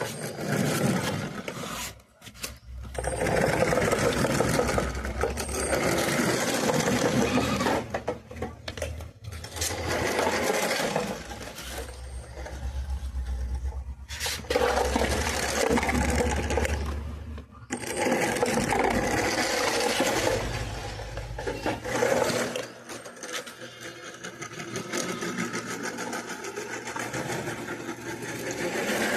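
Small electric motor of a homemade RC car whirring in spells that stop and start several times, with rattling from the running gear.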